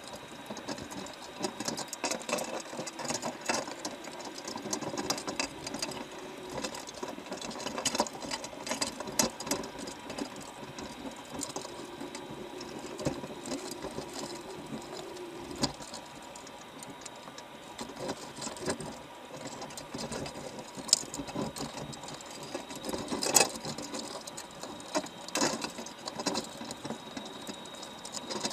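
Underwater recording of crabs feeding inside a wire crab trap: constant fast, irregular clicking and crackling as their shells and claws work against the bait and the mesh, with several louder knocks, the loudest about 23 seconds in.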